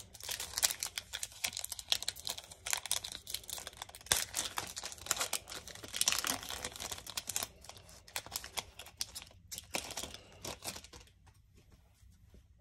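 Foil wrapper of an Upper Deck hockey card pack crinkling and tearing open by hand, a dense run of sharp crackles. The crinkling thins out and dies down near the end.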